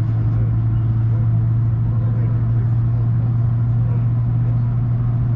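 Steady low drone and hum inside the passenger cabin of a Boeing 757-200 with its engines running on the ground before takeoff.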